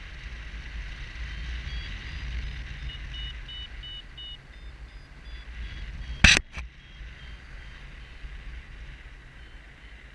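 Wind rushing over the GoPro's microphone during a paraglider flight, a steady low rumble with hiss. A faint run of short high beeps at changing pitches comes in from about a second and a half to six seconds. A sharp knock about six seconds in, with a smaller one just after, is the loudest sound.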